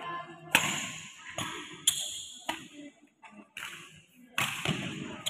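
Badminton rackets hitting a shuttlecock in a rally: a series of sharp cracks at irregular intervals of about half a second to a second, the loudest about half a second in, each with a short ringing echo.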